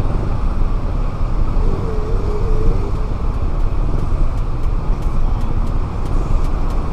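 Road traffic noise: a steady low rumble of vehicle engines in slow, stopped traffic, heard from the camera's vehicle.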